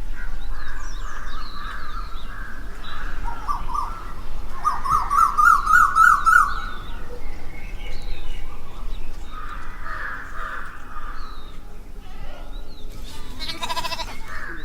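Goats bleating several times, drawn-out and quavering, with the loudest bleat in the middle. Birds chirp faintly in the background.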